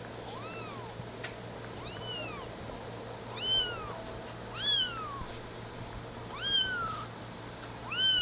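Newborn kitten mewing over and over: six high, thin mews about a second and a half apart, each rising then falling in pitch, louder in the second half. These are a young kitten's isolation cries, the calls that bring the mother cat to it.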